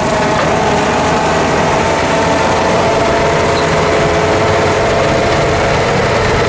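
John Deere 325G compact track loader's diesel engine running steadily under load while its hydraulic brush-cutter attachment mows tall dry grass, with a steady whine over the engine.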